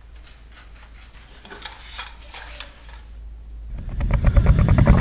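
A few faint light clicks and clinks, then, nearly four seconds in, a loud deep growling rumble with a fast pulsing rattle sets in and builds: a monster growl sound effect.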